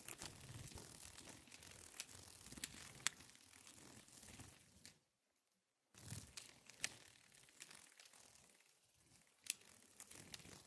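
Near silence: faint rustling with a few scattered sharp clicks, and a moment of dead silence about five seconds in.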